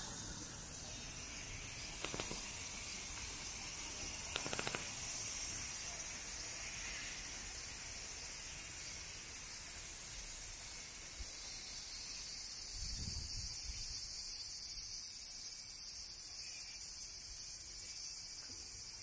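Cicadas buzzing steadily, a high continuous hiss, with a couple of faint taps about two and four and a half seconds in.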